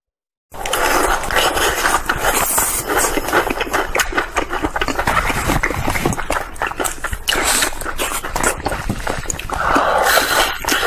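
Close-miked eating sounds: chewing and lip smacking on cream puff pastry and crunchy battered fried chicken, with many quick crackly crunches. They start abruptly about half a second in.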